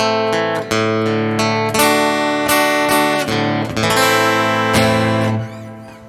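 Thin-body acoustic-electric guitar played fingerstyle through its pickup: picked notes and chords ringing out, the last chord dying away near the end.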